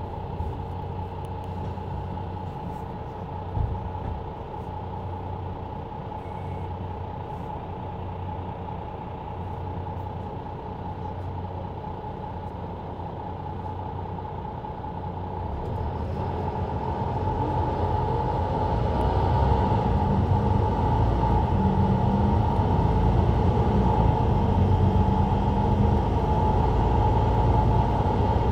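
Mercedes-Benz Citaro C2 LE bus heard from its rear seats, its diesel engine and ZF EcoLife automatic gearbox running steadily, with a short knock a few seconds in. About two-thirds of the way through, the engine grows louder and deeper and stays loud, as it works harder under power.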